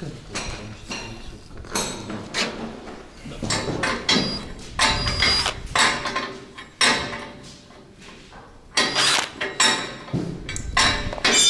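Irregular metal clanks and knocks of heavy parts being handled and fitted together: a dozen or more sharp strikes spread unevenly, with a quieter stretch about seven seconds in.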